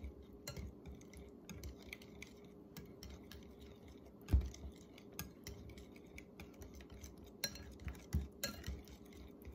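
Wire whisk beating mashed banana with egg and oil in a glass bowl: a quick, irregular run of clicks and taps as the whisk strikes the bowl, with one louder knock about four seconds in.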